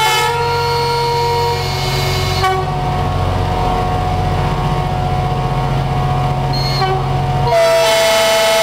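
Several diesel locomotive horns sounding together in long held notes over the low rumble of the running engines. The chord changes about two and a half seconds in, and near the end the rumble drops away and a single horn note carries on.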